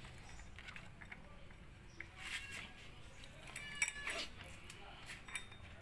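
A few faint metallic clicks and clinks as the fan-shaped drive pulley face of a Honda Vario 125's CVT is handled on the crankshaft, with a brief ringing clink a little under four seconds in.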